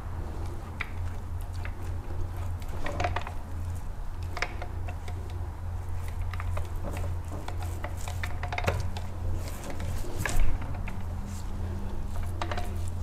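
Paint roller being rolled through thick, wet high-build primer on a fiberglass cockpit floor, with scattered light clicks and rattles, over a steady low hum.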